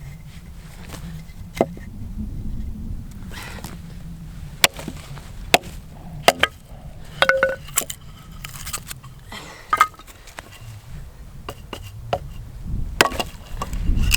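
Axe splitting small pieces of wood into kindling on a base log: a series of sharp, irregular chopping knocks, some followed by a short ringing.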